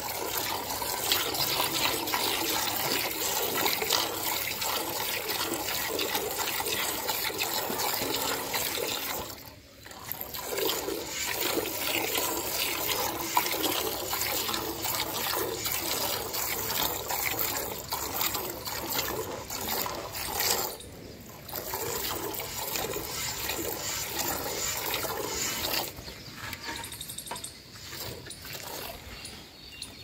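Milk squirting from a Murrah buffalo's teats into a steel bucket under hand milking: a fast, steady hiss of streams hitting the frothy milk, pausing briefly twice and quieter over the last few seconds.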